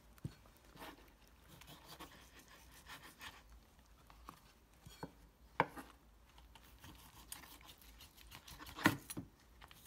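Chef's knife cutting pork spare ribs on a bamboo cutting board: faint scraping and rubbing of blade and meat, with a few sharp knocks of the knife on the board. The loudest knocks come about five and a half and nine seconds in.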